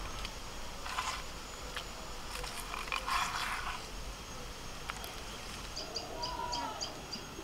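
A few scrapes and rustles of handling, then a bird repeating a short high note about three times a second from near the end.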